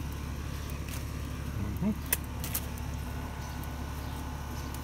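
A steady low background rumble, with two sharp clicks about two seconds in, half a second apart.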